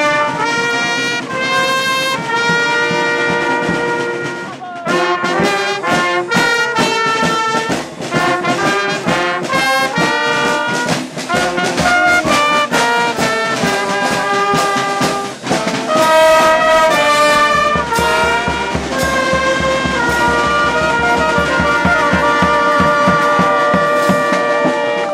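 Brass band playing a tune, trumpets and trombones to the fore.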